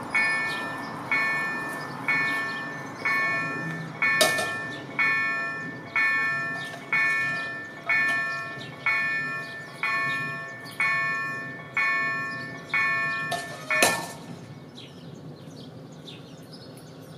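Level-crossing warning bell striking about once a second, each strike ringing out and fading, while the barriers come down to warn of an approaching train. It stops about fourteen seconds in, with a sharp knock as it stops and another about four seconds in.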